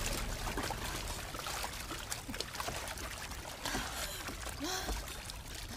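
Sea water sloshing and gurgling, with small scattered bubbly splashes.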